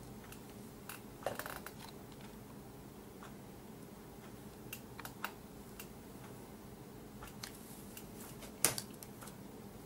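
Faint, scattered light clicks and taps of a metal ruler being set down and shifted on a cardboard cutout on a table, a few together about a second in and the sharpest one near the end.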